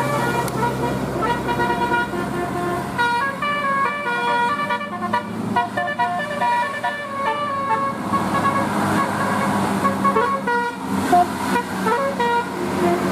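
A bus's telolet horn, a multi-tone air horn, playing quick stepping melodies of short notes again and again, over the vehicle noise underneath.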